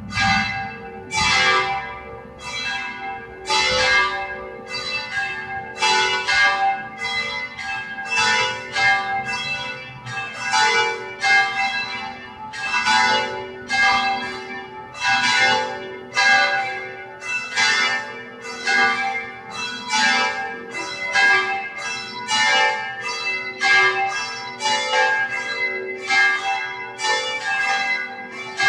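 Church bells ringing a wedding peal, struck about one and a half times a second in a steady run, each stroke ringing on into the next.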